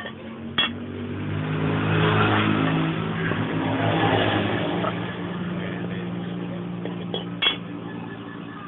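An engine running steadily, growing louder for a few seconds and then fading, with two sharp clicks, one near the start and one near the end.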